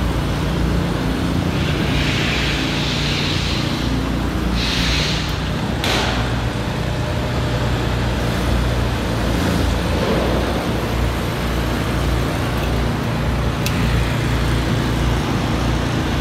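Steady din of highway traffic with a low, even engine drone underneath. Two brief hissing sounds come between about two and five seconds in, and a sharp click near six seconds.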